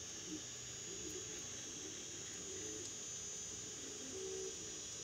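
3D printer's stepper motors whirring as the print head and bed move, in short tones that jump in pitch every fraction of a second, over a steady high whine.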